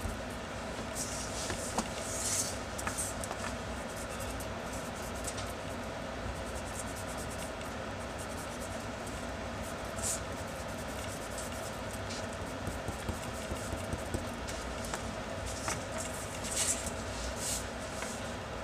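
An eraser rubbing over pencil lines on drawing paper in a few short scratchy spells, about a second in, near the middle and again near the end, over a steady low background rumble.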